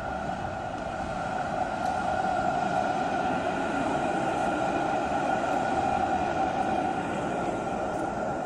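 An articulated electric street tram passes close by on street track. Its running noise and hum swell from about two seconds in and ease off near the end as it moves away.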